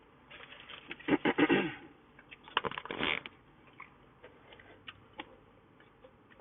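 Close-up eating sounds: two bursts of crunching and crackling in the first half, then a few scattered small clicks.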